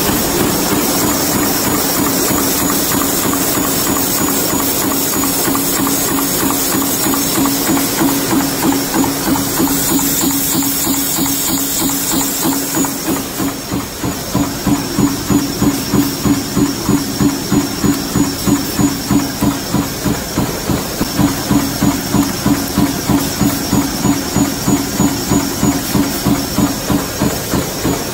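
Automatic hollow plug-pin production machine running with a continuous mechanical clatter; from about halfway through, a regular stamping beat of roughly three strokes a second stands out.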